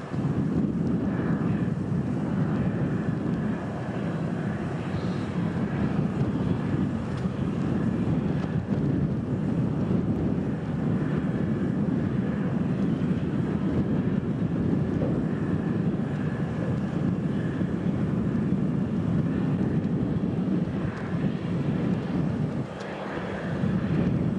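Steady low rumble of the Soyuz rocket's rail transporter train rolling slowly along the track, with a faint thin high squeal above it.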